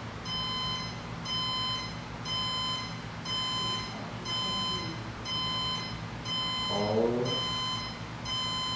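Electronic alarm clock beeping in a steady repeating pattern, about one beep a second.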